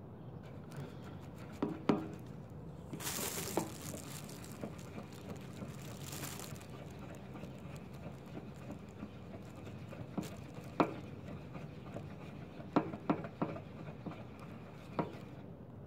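Hair dye being stirred in a bowl with a tint brush: light scraping with scattered taps and clicks of the brush against the bowl, and two short bursts of hiss in the first half.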